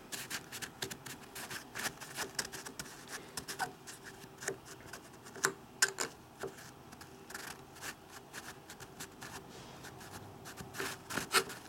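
Screwdriver scraping and poking inside a metal motorcycle brake master cylinder reservoir, with a paper towel rubbing, as hardened gunk is picked out: a run of small scratches and clicks, with a few sharper ticks about six seconds in and near the end.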